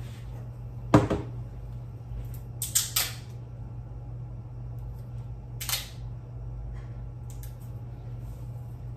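Scattered light knocks and clicks from items and packaging being handled and set down while packing gift boxes. The sharpest knock comes about a second in, a quick cluster follows near three seconds, and a few more come later, over a steady low hum.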